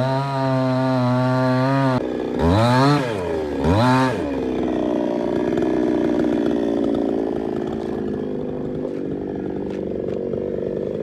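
Two-stroke chainsaw running as it cuts up a fallen coconut tree. It is held at high revs for about two seconds, revved up and down twice, then settles to a lower, steady run.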